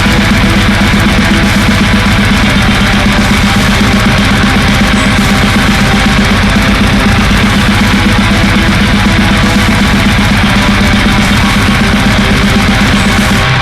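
Heavy metal music: loud distorted electric guitar over a fast, dense, unbroken rhythm.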